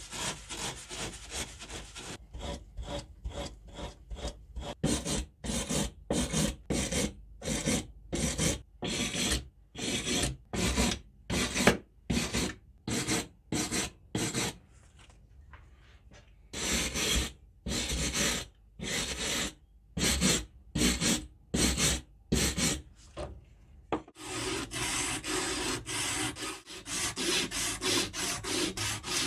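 Hand sanding of a rusty steel hammer head with abrasive paper: rasping back-and-forth strokes, about two a second, with two short pauses. Near the end it changes to faster, more continuous rubbing as a sandpaper strip is worked around the head's neck.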